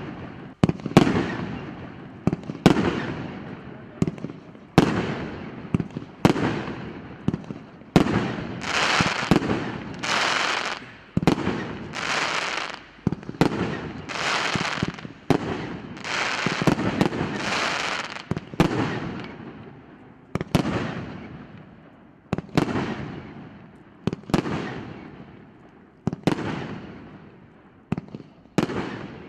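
R8620 "Povelitel Ognya" firework going off shot after shot, about one a second. Each is a sharp bang with a fading crackling tail, and the crackle runs denser and nearly continuous through the middle stretch.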